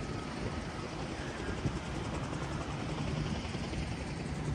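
Steady low drone of a distant aircraft engine over outdoor background noise.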